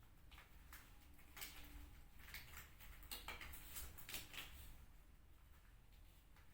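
Faint, scattered clicks and rustles of small items being handled and set down while equipment is being gathered, most of them in the middle few seconds.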